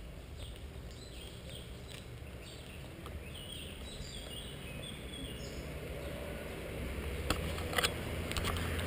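Small birds chirping in the park trees over a steady low rumble from the moving camera, with a few sharp knocks near the end.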